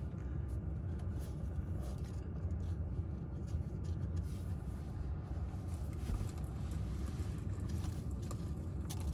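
Steady low rumble of the Tesla Model X's climate fan blowing warm air in the cabin, with faint scattered crackles from the car's fireplace mode, a recorded crackling fire played through the car's speakers.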